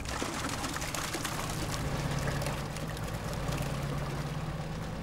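Water splashing and dripping as a landing net of live tench is lifted out of a holding tank and emptied into a bucket of water, over a steady low hum.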